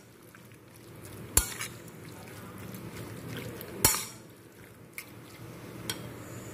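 Metal spoon stirring sliced raw beef in its marinade in a ceramic bowl: soft wet mixing with the spoon clinking sharply against the bowl twice, about a second and a half and four seconds in, and lightly twice more near the end.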